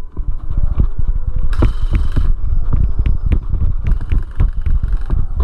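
Airsoft gunfight heard from a player's body-worn camera: dense thumping as the player moves and the gear and rifle knock about, with many sharp cracks of airsoft guns firing and two short hissing bursts.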